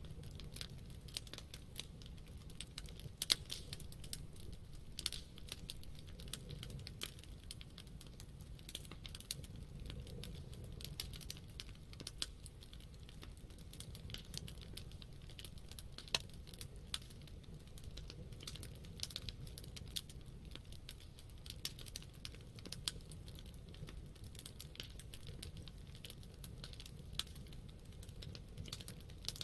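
Campfire of burning wood crackling, with frequent irregular pops and snaps of varying strength over a low steady rumble.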